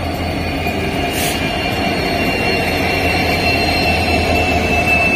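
Indian Railways diesel locomotive passing close by, its engine running with a steady low rumble and a high whine. There is a brief hiss about a second in.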